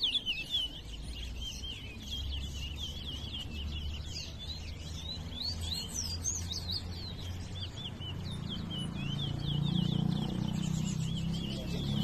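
Caged towa-towa finches singing a fast, unbroken twittering song in a bird-singing race, note after note high in pitch. A low hum runs underneath and grows louder over the last few seconds.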